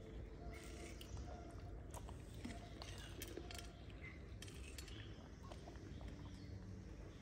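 A baby macaque biting and chewing a slice of watermelon: faint, irregular small wet clicks and smacks.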